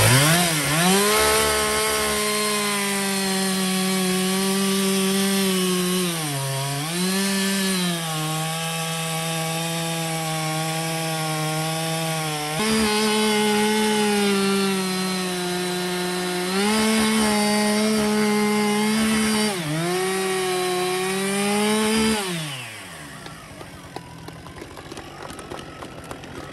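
Two-stroke chainsaw revving up and cutting through the end of a thick log at full throttle, its pitch dipping briefly a few times as the cut loads it. Near the end the throttle is released and the engine winds down.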